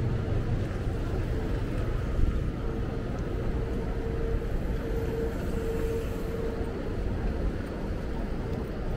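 Wind rumbling on a small camera microphone carried on a moving bicycle, over city street traffic, with a steady faint hum that grows a little stronger midway.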